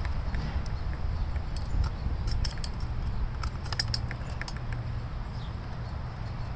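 Light metallic clicks and scrapes of a screwdriver prying at a rusted spark plug terminal on a small Stihl two-stroke engine. The clicks come irregularly, mostly in the middle stretch, over a low steady rumble.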